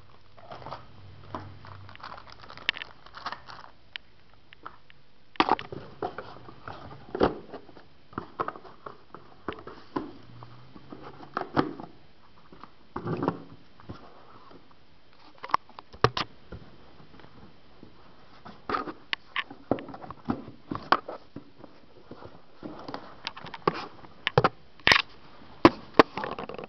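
Hands handling a smartphone and its retail packaging: irregular sharp clicks and taps mixed with short crinkling rustles.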